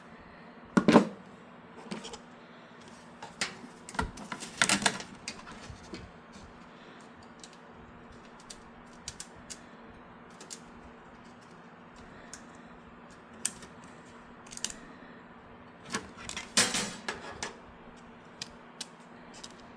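Scattered sharp clicks and small metallic knocks as a screwdriver and adapter work motherboard standoffs into a PC case, coming in a few short clusters with long gaps between them.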